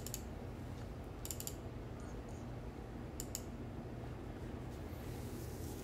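A few sharp computer mouse clicks: one at the start, a quick cluster just over a second in, and a double click about three seconds in. They sit over a steady low hum.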